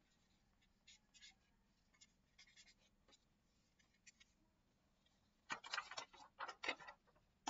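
Marker writing on a small whiteboard: faint, scattered short strokes at first, then a quicker run of louder strokes about two seconds before the end.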